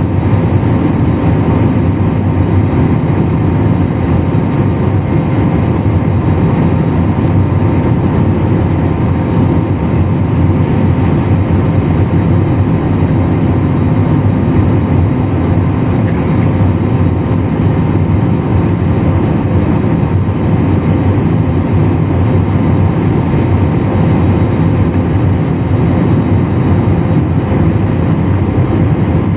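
Steady, loud noise of a jet airliner's engines and rushing air heard from inside the passenger cabin, unchanging throughout with a low rumble and a few faint steady tones.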